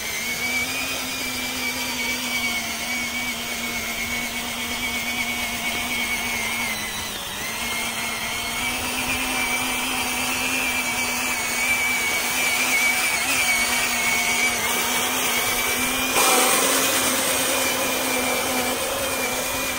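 Electric motor of a homemade battery-powered ride-on toy truck running steadily under load, a constant whine that sags briefly about a third of the way in. Near the end a louder, rougher noise joins the whine.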